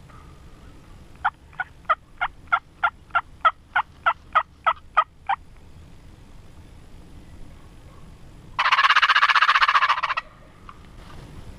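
A run of about fourteen evenly spaced turkey yelps, getting louder. About three seconds later comes a loud rattling turkey gobble lasting about a second and a half.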